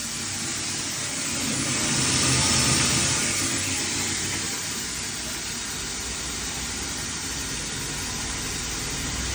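Rice granule grinder machine running while rice is fed into its hopper: a steady mechanical whir with a hissing rush of grain, a little louder about two to three seconds in.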